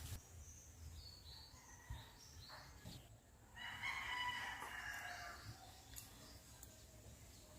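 A rooster crows once, faintly, about three and a half seconds in, the crow lasting about two seconds. Small bird chirps come before it.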